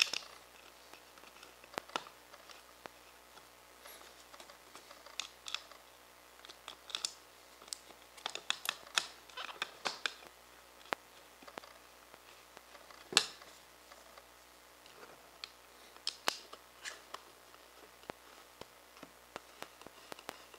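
Small screws being finger-started through a clear acrylic mount plate into a rotisserie motor's metal face: faint, scattered clicks and scrapes of metal on plastic, with one sharper click about two-thirds of the way through.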